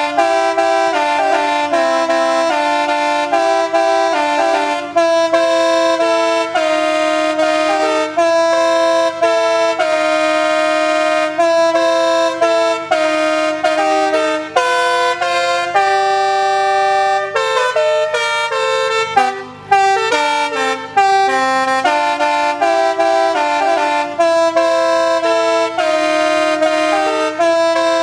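The Great American Horn Machine, a trailer-mounted bank of air horns, playing a tune: several horns sound at once in chords, and the notes change every fraction of a second. It pauses briefly about two-thirds of the way through, then plays on.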